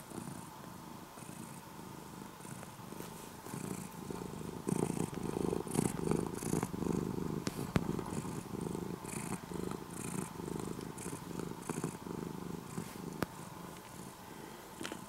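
Orange-and-white domestic cat purring steadily, a low pulsing rumble that grows louder for several seconds in the middle.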